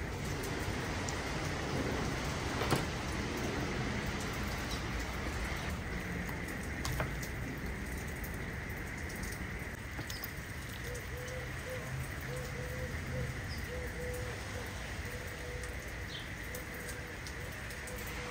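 Steady outdoor hiss with a few soft clicks and knocks as a snapper is gutted by hand on a wooden cutting board. In the second half a bird's low call repeats about twice a second.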